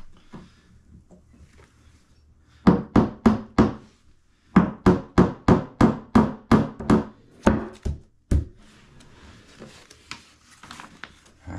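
Hammer striking the edge of a Kallax shelf board to drive it onto wooden dowel pegs. There is a quick run of about five blows, a short pause, then about a dozen more at roughly three a second.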